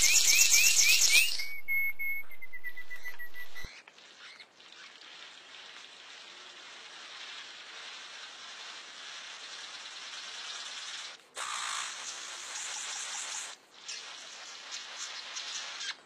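Male King of Saxony bird-of-paradise calling. It opens with a quick run of loud rising notes over a harsh rasp and a steady whistle of about two seconds, then gives a long, crackling, static-like hiss that grows louder after about eleven seconds.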